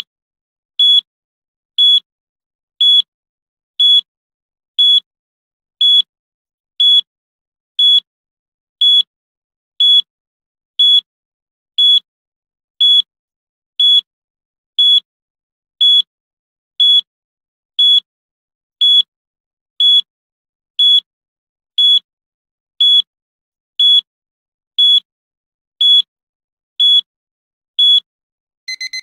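Digital countdown timer beep: one short, high electronic beep every second, ticking off the seconds. At the very end a lower, different beep begins, the start of the end-of-countdown alarm.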